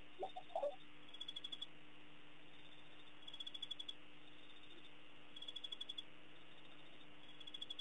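Night chorus at a waterhole: a high, pulsed chirp of about half a second that repeats four times, every two seconds or so. A brief low call sounds just after the start, and a faint steady hum runs underneath.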